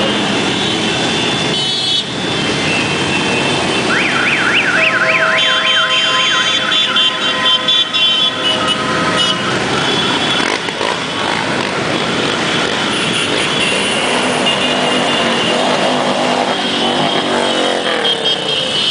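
A column of motorcycles riding past on a wet street, engines running over the hiss of tyres. About four seconds in, a fast warbling siren-like tone sounds for a couple of seconds, followed by held horn notes for a few seconds.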